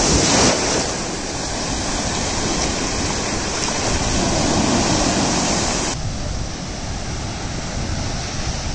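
Sea surf washing in over the feet in shallow water, a steady rush of foaming water. About six seconds in it changes abruptly to a duller, lower rush of waves breaking further out.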